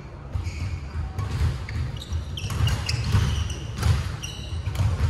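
Badminton play in a large sports hall: a few sharp racket strikes on the shuttlecock in the second half, short high squeaks of court shoes on the wooden floor, over a steady low hum.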